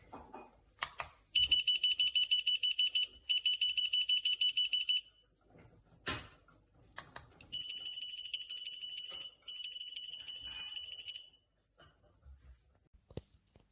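RF key finder tag beeping: a rapidly pulsed high-pitched electronic tone in two bursts of about three and a half seconds each, each with a short break partway, the first louder. A few handling clicks come between the bursts.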